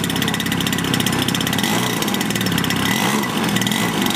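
Engine of a large scale model Zero fighter plane running steadily at idle on the ground.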